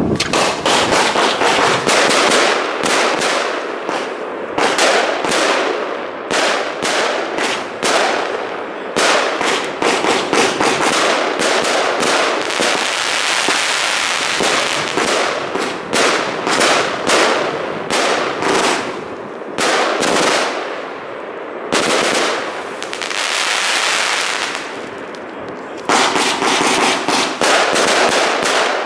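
Heron Bad Wolff 1.2 kg fireworks cake firing: a rapid, continuous string of shots and bangs over dense crackling from the bursting stars, with a couple of brief lulls near the end.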